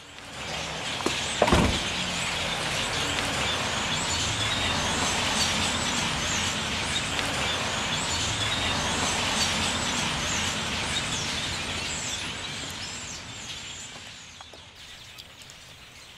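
Steady outdoor ambience with many small bird chirps over a hiss of noise. A sudden thump comes about a second and a half in, and the ambience fades out over the last few seconds.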